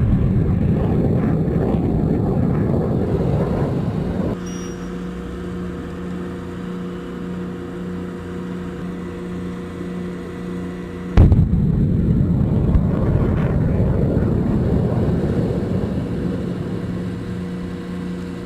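Two HIMARS rocket launches, each a sudden blast followed by the rumbling roar of the rocket motor. The first roar cuts off abruptly about four seconds in. The second blast comes about eleven seconds in and its roar fades away slowly. A steady hum runs underneath.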